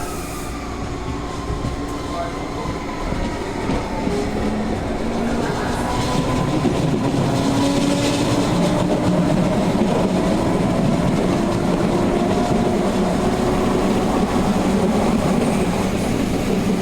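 ADtranz GTO VVVF traction inverter and motors of a CPTM Série 2000 electric train growling under traction over rail running noise: several whining tones that slowly shift in pitch, growing louder over the first half. The growl is a little different from the normal sound of these trains.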